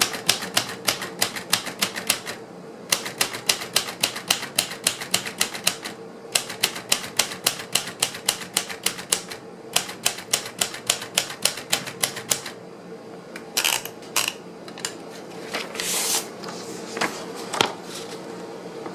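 A 1966 Royal Aristocrat manual typewriter being typed on: quick runs of key strikes, several a second, broken by short pauses. About twelve seconds in the steady typing stops and only a few separate louder clacks follow. A faint steady hum runs underneath.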